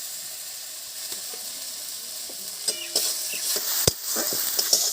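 Curry spice paste sizzling in hot oil in a kadai as it is stirred and fried down, with a steady hiss. In the second half a spatula scrapes and knocks against the pan several times, one knock sharper than the rest.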